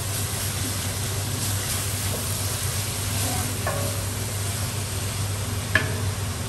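Chopped onion, garlic and ginger frying in oil in a large stainless steel stockpot, sizzling steadily while a wooden spoon stirs and scrapes through it, over a constant low hum. Near the end comes a single sharp knock as the spoon is set down against the pot.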